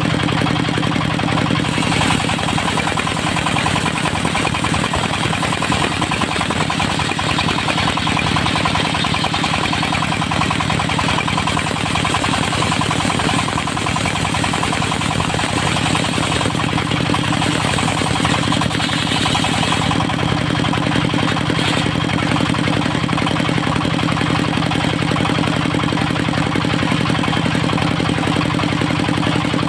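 Engine of a portable circular sawmill running steadily with a strong low hum, its hiss swelling briefly about two seconds in and again for a few seconds past the middle.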